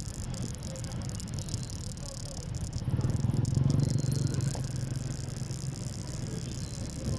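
Motorbike engine running with road and traffic noise while riding. The low rumble grows louder about three seconds in.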